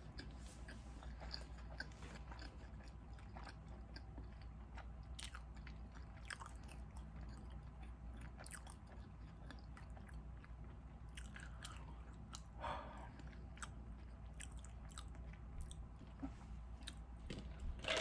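Close-miked chewing of food: soft mouth smacks and many scattered small clicks, with one slightly louder moment near the middle.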